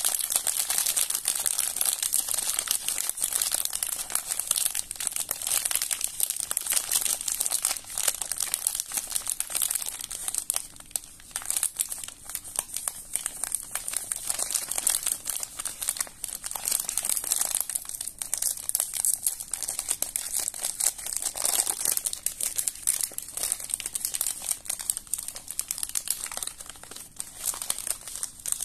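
Metallized plastic biscuit wrapper crinkling continuously as fingers squeeze and work it, and being torn open, with brief lulls in the crackle.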